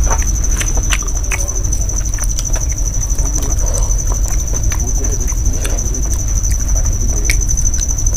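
Moist clicking and smacking of someone eating by hand, mixing rice and mutton curry with the fingers and chewing, in many short irregular clicks. A steady low hum and a continuous high-pitched whine sit underneath.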